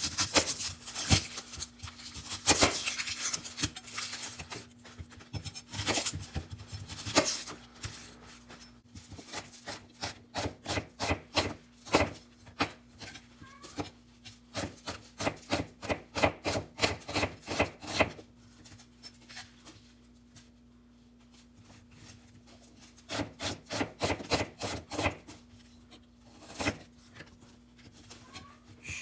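Kitchen prep on a wooden cutting board: knife strokes and scraping in irregular runs of quick, sharp hits, with a quieter pause about two-thirds of the way through. A faint steady hum sits underneath.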